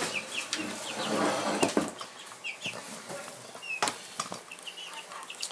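Young chicks, about three and a half weeks old, peeping in short high chirps, with a rushing noise about a second in and a couple of sharp knocks.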